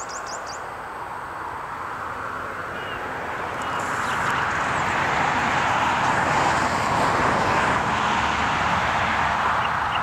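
A vehicle passing by: a steady rushing noise that swells up from about four seconds in, holds, and eases off near the end.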